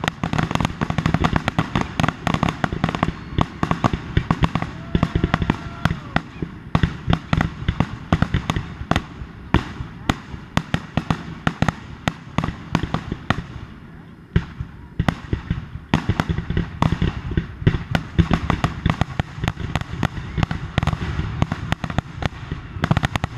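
A rapid, continuous barrage of firework bursts and crackles, many bangs a second, with a brief lull a little past the middle.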